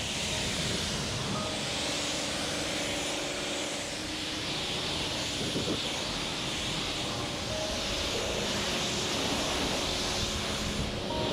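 Pressure-washer jet spraying steadily onto a car's bodywork, rinsing off mud and road grime: a continuous hiss of water with a faint steady hum underneath.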